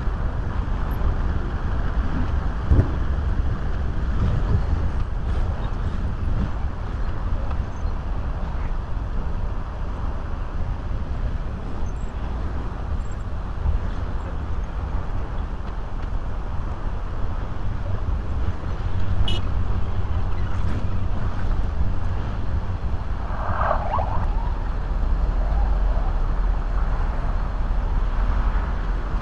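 Steady city road traffic: car engines and tyres rumbling as vehicles pass through an intersection. About 24 seconds in there is one brief higher-pitched sound.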